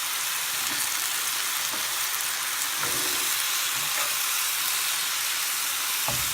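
Oyster mushrooms sizzling steadily as they fry in butter in a pan, with a few light knocks of a utensil as they are turned over.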